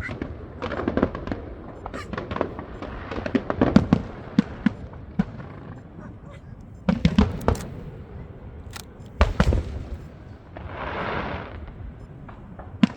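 Aerial fireworks going off: a string of sharp bangs and crackles at irregular intervals, some in quick bunches, with a hiss lasting about a second near the end.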